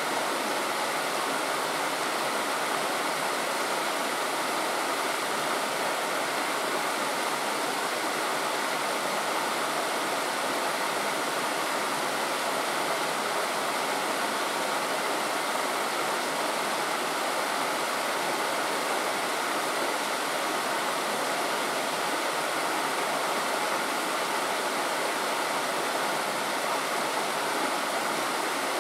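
Steady rush of flowing water, an even noise that does not change.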